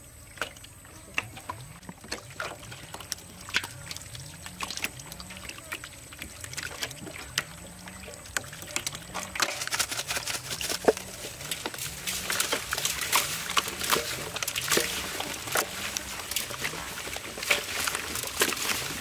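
Wet raw beef intestines squelching and splashing in an aluminium basin as several people wash and knead them by hand. The squishing grows busier and louder from about halfway through.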